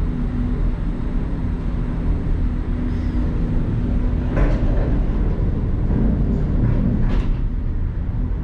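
Disney Skyliner gondola cabin travelling along its cable in high wind: a steady low rumble with a faint hum, and a few short rattles from the cabin about four and a half and seven seconds in.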